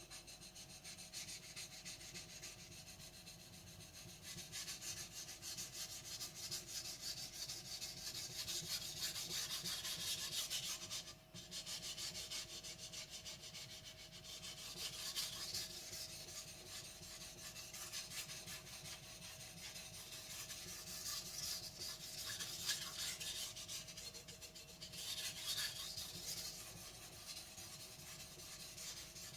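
Blue-steel carbon gyuto blade stroked back and forth on a Naniwa 1000-grit soaking whetstone: a continuous gritty scraping of steel on stone that swells and eases, with a brief break about eleven seconds in.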